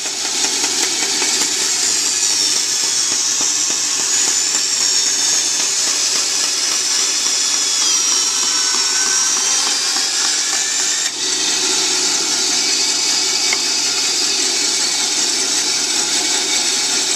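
Bench band saw running and ripping a juniper board, a steady loud saw noise with a wavering high whine as the blade works through the wood.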